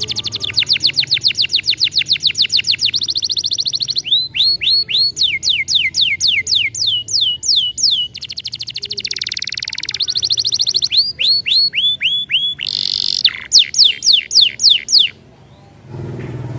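Domestic canary song: fast runs of repeated trills and hooked, whistled notes, switching to a new phrase every second or two, then stopping abruptly about a second and a half before the end. A low hum comes back at the very end.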